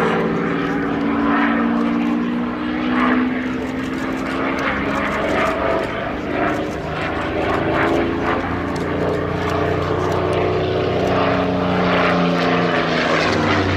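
Radio-controlled model aircraft motors and propellers whirring, several tones rising and falling in pitch as the throttle changes.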